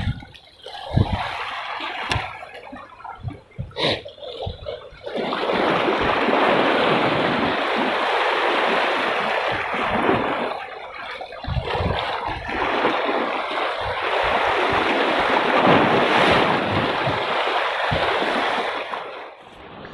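Sea surf washing and splashing against shoreline rocks, a steady rush of water. A few sharp knocks come in the first few seconds.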